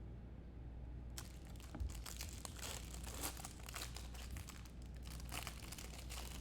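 Plastic packaging crinkling and rustling close by while trading cards are handled, starting about a second in and continuing in irregular bursts.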